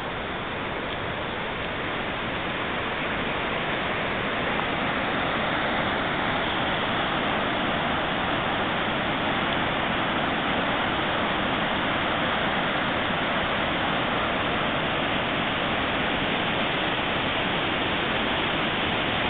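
Steady rush of whitewater on the Roaring River, a dense hiss with no breaks, growing louder over the first few seconds and then holding level.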